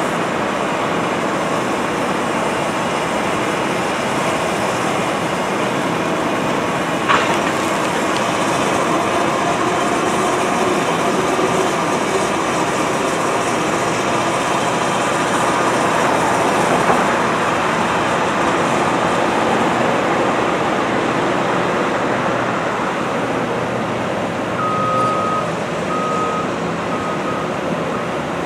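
Caterpillar hydraulic excavator running steadily, engine and hydraulics working as its bucket and thumb handle large timbers, with a single sharp knock about a quarter of the way in. Near the end a backup alarm beeps three times.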